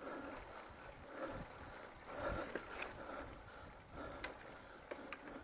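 Mountain bike ridden up a singletrack climb: the rider's breathing comes in soft pulses about once a second, over light clicks and rattles from the bike, with one sharp click about four seconds in.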